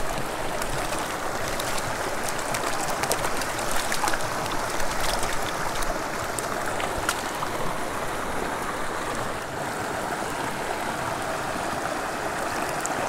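Small mountain stream running and babbling steadily over a shallow gravel riffle. A few light splashes and clicks come from the middle of the stretch as a landing net and a hand move in the shallow water.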